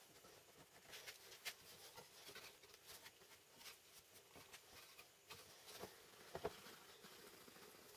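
Faint, scattered light taps and clicks, irregular and a few seconds apart at most, with a slightly stronger knock about a second and a half in and another around six and a half seconds.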